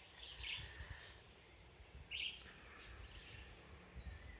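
Faint rainforest ambience: a steady high insect whine with a few short chirping calls.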